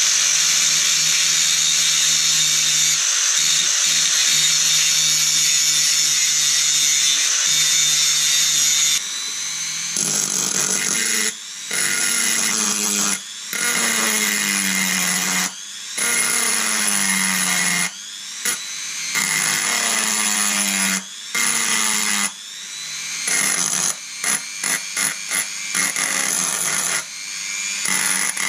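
An angle grinder grinding a steel weld, steady and loud for about the first nine seconds. Then a Dremel rotary tool fine-grinds the weld with a small bit, run in repeated bursts with short stops, its whine falling in pitch during each burst, and with several quick on-off bursts near the end.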